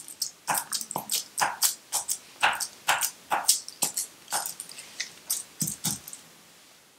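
Aluminium foil crinkling as a glue cap is pressed and rubbed firmly over it, pressing the foil down onto glued paper hearts. A quick run of crackles, about four a second, that stops about six seconds in.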